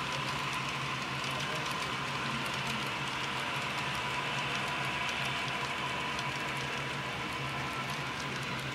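HO-scale model freight cars rolling along the track, their small wheels making a rapid, irregular clicking patter over the rail joints, over a steady hum.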